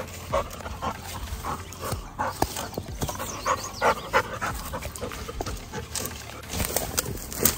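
A dog panting and moving about close to the microphone, with many short, irregular scuffing sounds.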